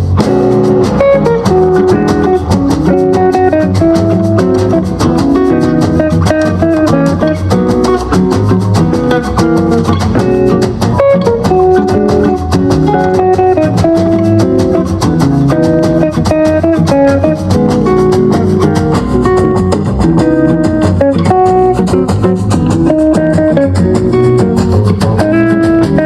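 Acoustic Latin jazz, plucked guitar over light drums, played at full volume through a JBL Charge 5 portable Bluetooth speaker.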